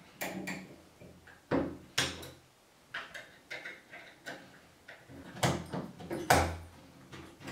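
Irregular metal clicks and knocks from an old door lever handle being unscrewed with an Allen key and pulled off the door, the loudest knock near the end.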